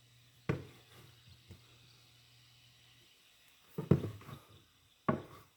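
Kitchen items being handled: one sharp knock about half a second in, a loud cluster of clatters near four seconds and another knock near the end. Under them runs a faint low hum that stops about three seconds in.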